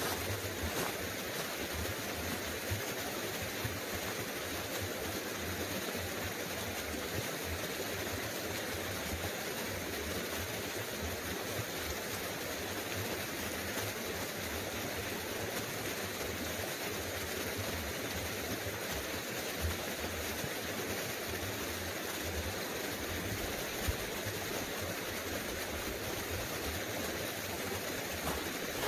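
Small creek running steadily: an even, unbroken rush of flowing water.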